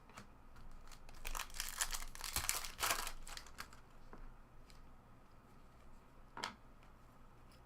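Foil trading-card pack wrapper crinkling and tearing as it is opened, with a sharp click among the rustling, then quieter handling of the cards.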